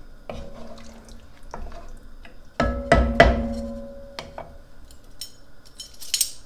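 A cooking utensil knocking and scraping against a large pot of chili as it is stirred and dipped into, several clanks that each ring briefly, the loudest about three seconds in.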